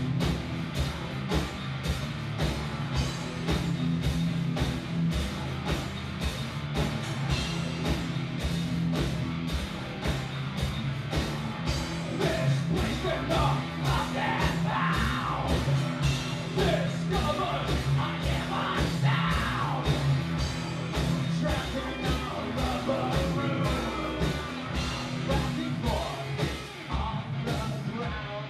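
Live rock band playing: distorted electric guitar and drums keeping a steady fast beat, with sung and shouted vocals into a microphone, clearest around the middle.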